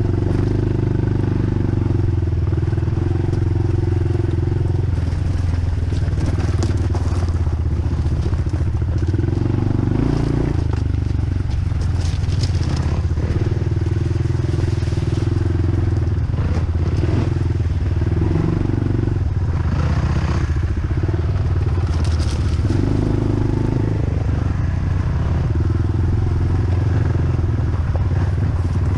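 Dirt bike engine running continuously while riding a trail, its note rising and dropping every few seconds with throttle changes. Short crackles and clatters come and go over it.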